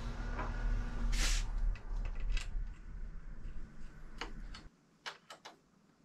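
Scattered clicks and knocks of a Mavic Starfish SSC crankset being handled and fitted onto a bicycle bottom bracket spindle, with a brief rustle about a second in. A low background rumble stops suddenly near the end.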